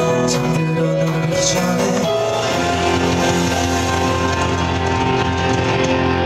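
Live band music with guitar, rehearsing a gentle song: a male vocal line for about the first two seconds, then sustained held chords.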